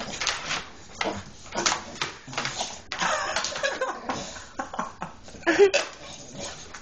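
Pet dog making odd short whining and grumbling noises mixed with rustling, irregular throughout, with a short higher-pitched whine about five and a half seconds in; the noises are his way of asking to be let out of bed.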